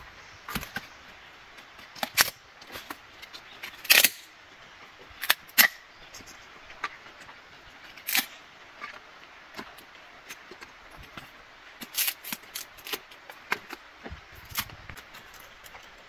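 Dry sticks and split bamboo strips being handled and laid as kindling: irregular sharp clicks and cracks, a few much louder than the rest, over a steady faint hiss.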